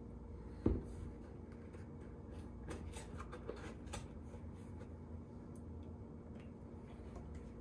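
Kitchen handling noises as a cardboard carton is poured into a plastic measuring cup: one sharp thump about a second in, then scattered light clicks and rustles, over a steady low hum.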